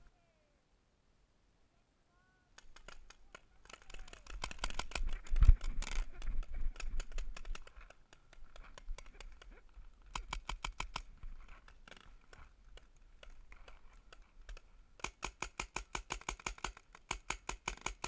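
After about two and a half seconds of silence, paintball markers firing in bursts of sharp pops, with one loud thump about five and a half seconds in. The longest even run comes near the end, at about six or seven shots a second.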